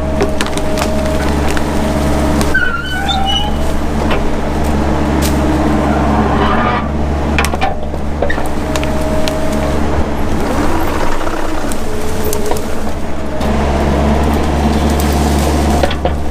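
Mini excavator running steadily under load, its hydraulics whining on and off as it works, while brush and small trees crack and snap.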